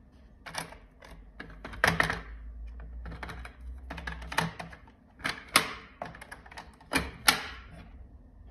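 Hard plastic clicks and clacks as white plastic plug-in fiber cassettes are handled and slid out of their slots in a plastic fiber-optic distribution box: a string of sharp knocks, about eight strong ones, loudest about two seconds in and near the end.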